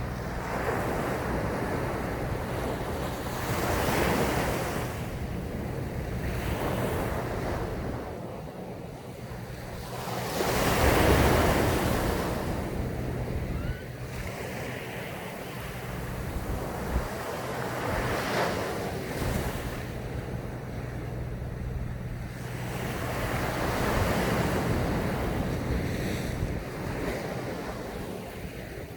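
Sea waves breaking and washing up a sandy beach, about five surges in turn, the biggest about a third of the way in, over a steady low rumble.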